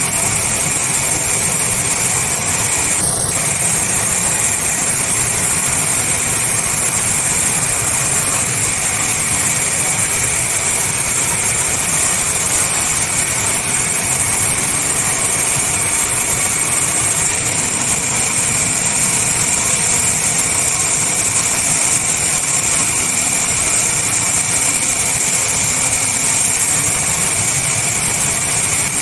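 Sawmill machinery running steadily: a constant mechanical noise with a steady high whine.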